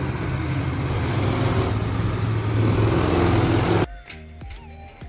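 Small go-kart engines running as karts drive around a track: a steady engine hum over road and wind noise, growing a little louder, then cutting off suddenly about four seconds in. Quieter music follows near the end.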